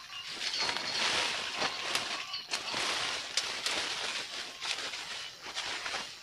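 Leafy coffee branches rustling as they are handled and stripped by hand, with scattered sharp ticks of coffee cherries dropping onto the tarp below.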